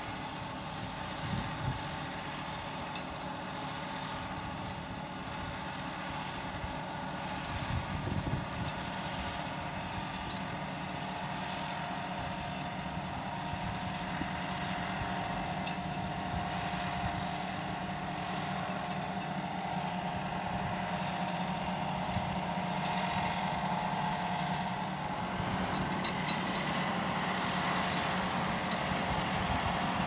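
John Deere 6155R tractor's six-cylinder diesel engine running steadily under load while pulling a five-furrow plough, growing gradually louder toward the end.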